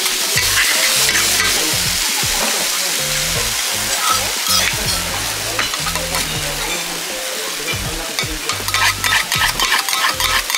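Shredded cabbage sizzling on a hot iron teppan griddle while metal spatulas chop and scrape it for monjayaki, with a steady hiss and many sharp scraping clicks; near the end the chopping quickens into a rapid run of clicks.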